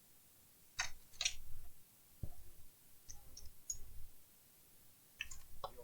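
Handling noise at a repair bench: a scattering of short clicks and light knocks as small parts and tools are handled on a laptop.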